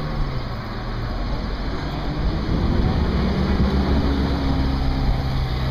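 Ferrari sports car engine running at low speed as the car rolls slowly past, a steady low rumble.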